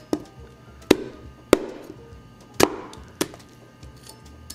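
Knife chopping through corn cobs on a wooden cutting board: five sharp, hard chops, spaced unevenly about once a second.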